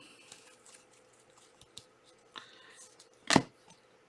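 Trading cards being handled, with soft rustles and light clicks, then one short sharp slap or snap about three seconds in.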